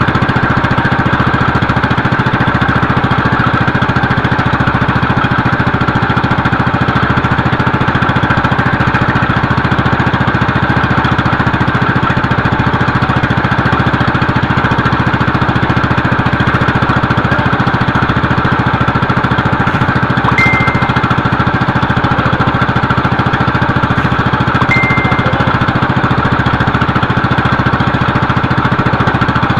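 Small boat engine running steadily at idle while the crab net is hauled. Two short high chirps come about four seconds apart, late on.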